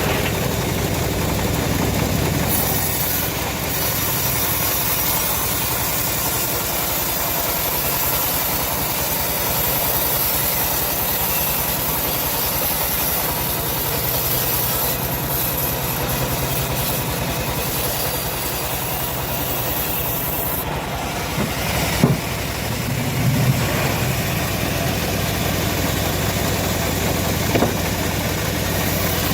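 Engine-powered homemade bandsaw mill running steadily, with a couple of short sharp knocks about two-thirds of the way through.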